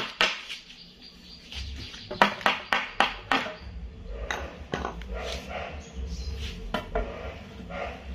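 Hand tools knocking and clinking against hardwood during joinery work: a run of about five quick, sharp strikes a couple of seconds in, with scattered lighter knocks and clinks around it.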